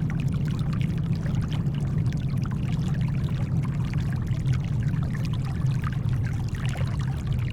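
Steady deep brown noise mixed with shoreline water: gentle lapping, with a constant scatter of small splashes and trickles and no big wave crashes.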